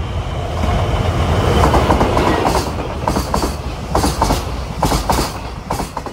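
N-scale model freight train, a DF200 diesel locomotive model hauling wagons, running past close by: a steady rumble of wheels and motor, with a series of sharp clicks as the wagon wheels cross rail joints, more spaced and distinct from about two and a half seconds in.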